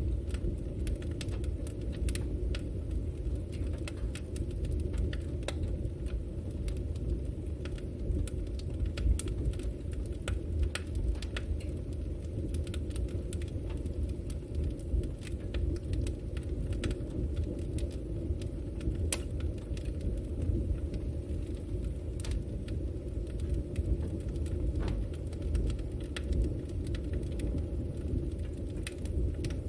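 Campfire of burning wood: a steady low rumble of the flames with frequent, irregular sharp crackles and pops.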